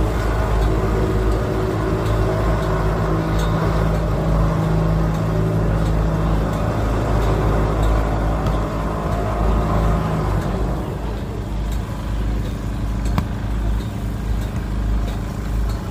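Motor vehicle engine running close by, a steady low hum that fades out about ten seconds in, over a continuous low rumble of road traffic.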